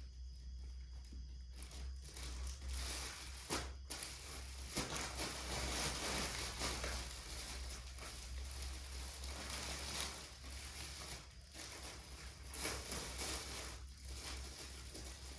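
Plastic packaging rustling and crinkling as baby clothes are unwrapped, with scattered small clicks and tears, starting about two seconds in.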